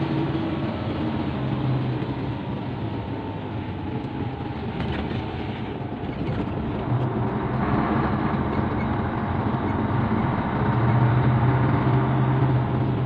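Truck engine running while the truck drives slowly, heard from inside the cab. The engine note grows louder about halfway through and again near the end.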